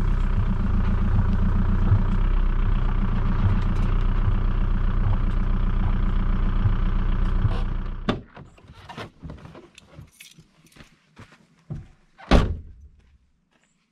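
Volkswagen Beetle's engine running with a steady pulsing note as the car rolls in, then cutting off abruptly about eight seconds in. Scattered clicks and knocks follow as the driver's door opens and he climbs out, and one loud thump comes near the end.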